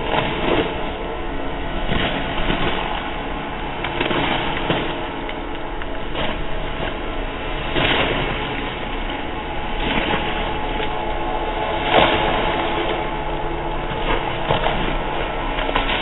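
Snow or slush recording processed into a horror sound effect: a dense, rumbling drone threaded with lingering steady tones, broken by short sharp swells every second or two.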